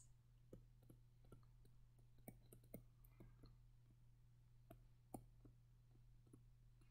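Faint, irregular clicks and taps of a stylus on a tablet screen during handwriting, over near silence.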